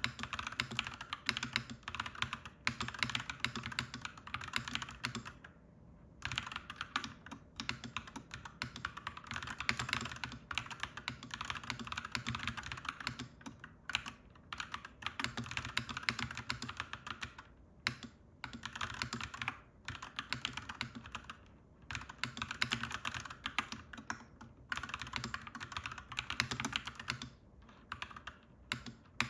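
Fast typing on a clacky mechanical keyboard: dense runs of key clicks broken by short pauses every few seconds.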